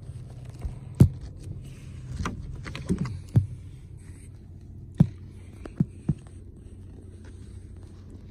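Irregular sharp knocks and bangs, about seven in all, from work on a truck's cargo bed, over a low steady hum.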